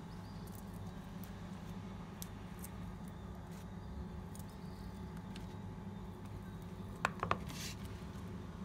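Kitchen handling sounds as fried chicken pieces are placed onto a salad in a plastic container: light scattered clicks, then two sharp clacks of utensil on container about seven seconds in, over a steady low hum.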